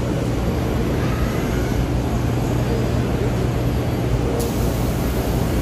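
Steady low machine hum over the general din of a busy machinery exhibition hall.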